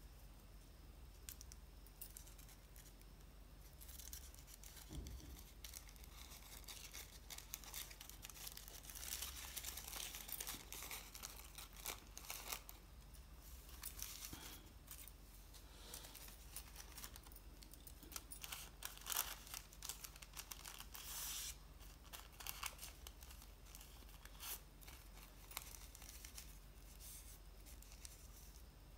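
Thin kite paper rustling and crinkling in faint on-and-off bursts as hands unfold and smooth a crumpled sheet.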